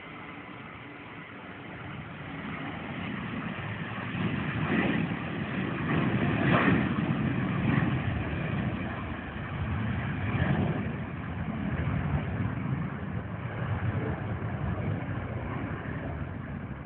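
Jet airliner's engines at takeoff power during the takeoff roll: a rushing, rumbling noise that builds over the first few seconds, then stays loud with slow swells.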